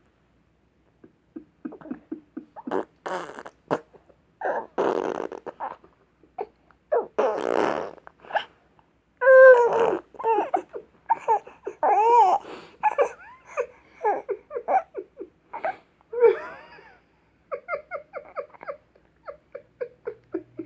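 Blown lip raspberries, the wet buzzing 'fart noises', in a string of short bursts, giving way about halfway through to laughter and high, wavering squeals.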